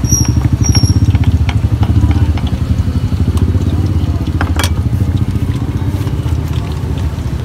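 Motorcycle engine idling steadily close by, a rapid low pulsing, with a sharp click about four and a half seconds in.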